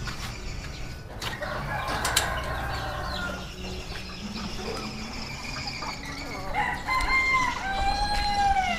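Chickens calling, with a rooster crowing in one long arched call near the end.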